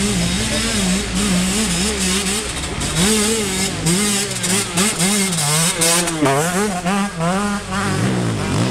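Off-road enduro motorcycle engines revving up and down under load as the riders work through deep mud, the pitch rising and falling about twice a second. A second bike comes in higher and louder over the second half as it nears.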